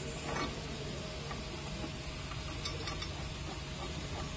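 Steady factory background hum with a few light metallic clicks as gloved hands work a screw on the press's stainless steel chute bracket, about half a second in and again near three seconds in.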